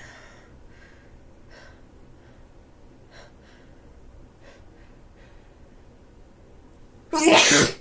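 A person with a heavy head cold taking short, faint gasping breaths as a sneeze builds, then sneezing loudly once near the end.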